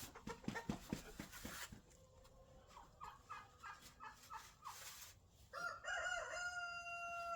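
A rooster crowing, starting about three-quarters of the way in and holding its long final note steady. Before it comes a run of short clucking notes.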